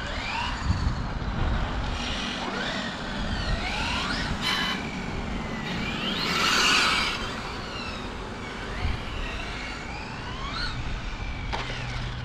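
Radio-controlled model cars running on asphalt, their motors sweeping up and down in pitch as they speed up and slow down. The sound swells loudest about six to seven seconds in, when one passes close.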